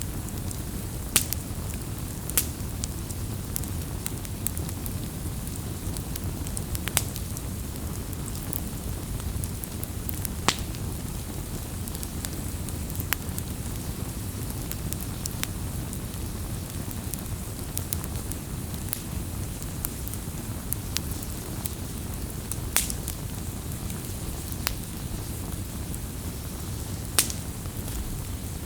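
Wood fire crackling: irregular sharp pops and snaps, some louder ones a second or more apart, over a steady low rush of burning.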